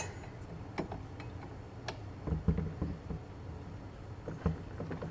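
Scattered light clicks and knocks, one every second or so, of metal parts being handled: a flash hider being tightened back onto the threaded muzzle of an airsoft rifle with a flash-hider tool.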